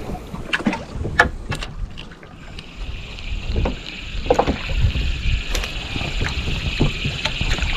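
Wind buffeting the microphone on a small boat at sea, a constant low rumble with scattered knocks. An even hiss comes in about two seconds in and holds.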